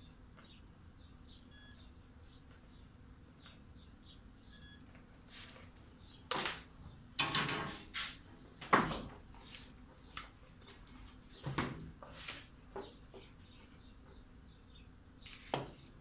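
Scattered clicks, knocks and rustles of hands handling multimeter test leads and wiring on the plastic motor housing of a wet-and-dry vacuum cleaner, loudest about halfway through, with faint bird chirps in the background.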